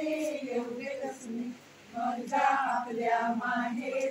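A group of women singing a devotional folk song together in Marathi, with a short break about a second and a half in.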